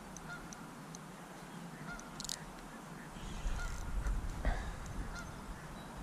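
Geese honking, short calls repeating every second or two, with a couple of light clicks.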